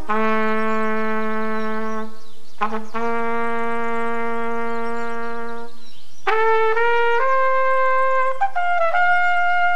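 A flugelhorn played solo. It holds a low note for about two seconds, stops briefly, then holds the same note again for nearly three seconds. After about six seconds it climbs into a phrase of higher held notes.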